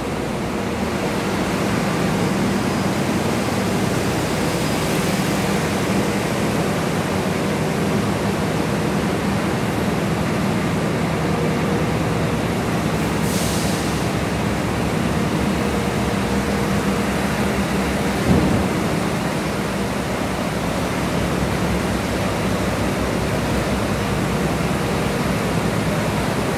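Steady low drone of bus diesel engines running on a ferry's enclosed steel car deck. A brief hiss comes about halfway through and a single sharp knock about two-thirds through.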